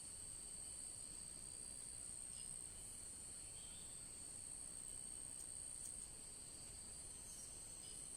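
Insects droning steadily, a faint high-pitched continuous trill in two pitches, with a few brief faint chirps in the middle.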